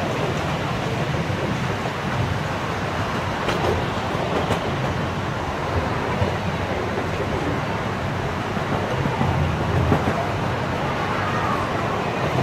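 Miniature park train riding on narrow-gauge track: a steady low rumble of its wheels on the rails, with a couple of sharper clicks about a third of the way in.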